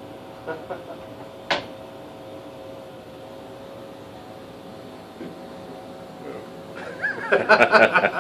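A steady machine hum of a few high tones, a sharp click about a second and a half in, then a man's voice breaking in loudly near the end.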